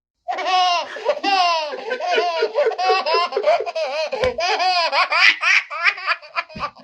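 A baby laughing in a long run of rapid, high-pitched giggles that rise and fall several times a second. It goes on with hardly a break for about six and a half seconds, then stops.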